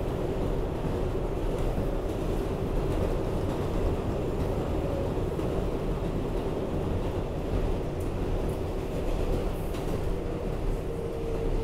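R188 subway car running between stations, heard from inside the car: a steady rumble of wheels on rail with a thin steady tone over it, and a second, slightly higher tone joining near the end.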